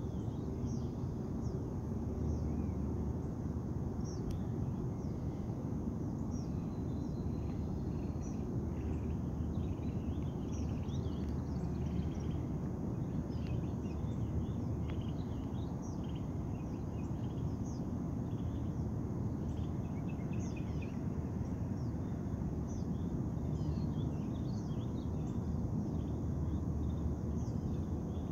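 Many birds chirping and calling in short, overlapping notes from the reeds and trees along a lakeshore, over a steady low rumble.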